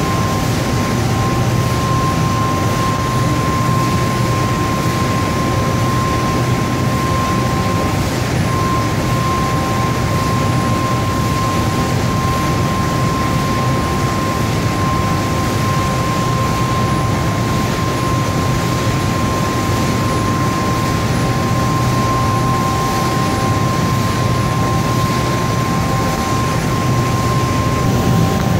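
HEMAKS HMX 2500 short-cut pasta line running: a steady machine noise with a constant high-pitched whine over a low hum.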